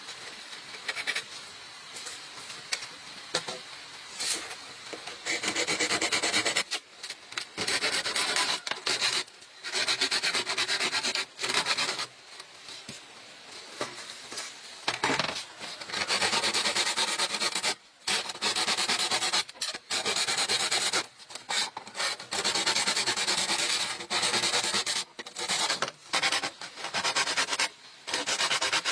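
A hand tool scraping along bamboo in repeated strokes of one to two seconds with short breaks, becoming louder and steadier about five seconds in.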